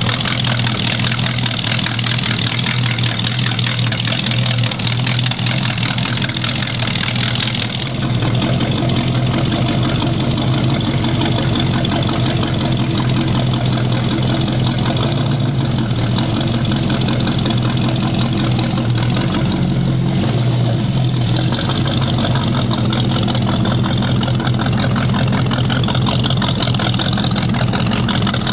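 400 stroker Chevrolet small-block V8 running at a steady idle through a Remus side exhaust. About eight seconds in the sound steps up slightly, louder and deeper.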